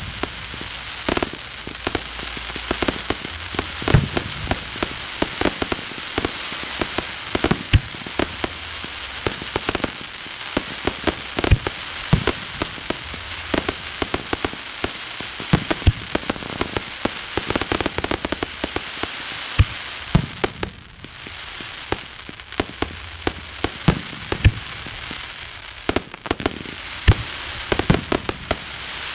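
Professional fireworks display: aerial shell bursts and crackling effects going off in rapid succession over a steady crackling hiss, with a brief lull about two-thirds of the way through.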